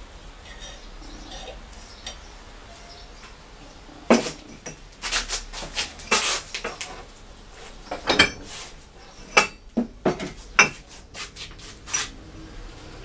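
Irregular sharp metallic clinks and knocks as a thin iron rod and a glass wine bottle are handled against a steel workbench and a bending jig, starting about four seconds in and stopping near the end.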